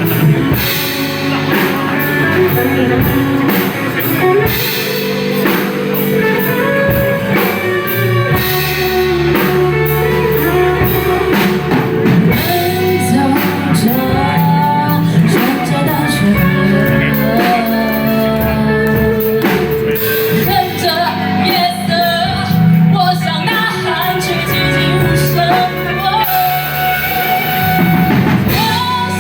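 Live rock band playing a song: a lead singer over two electric guitars, bass guitar and a drum kit.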